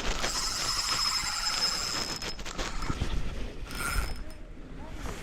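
Fishing reel drag giving line in fast ringing clicks as a hooked fish pulls hard. There is one long run of about two seconds near the start, then a short burst about a second and a half later.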